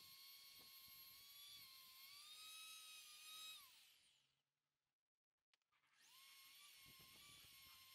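Dremel rotary tool running with a faint, steady high whine while polishing the inlet manifold, its pitch rising slightly partway through. About three and a half seconds in it winds down to a stop, and after a second or two of quiet it starts up again and runs steadily.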